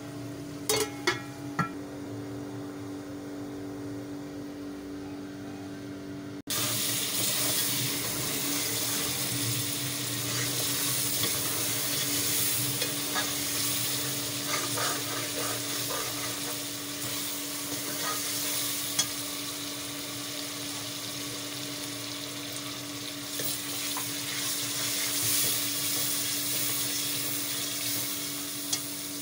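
Meat rolls in tomato gravy sizzling and bubbling in a steel pot, with a metal spoon clinking against the pot a few times about a second in. About six seconds in the sizzling jumps suddenly louder and stays loud, over a steady low hum.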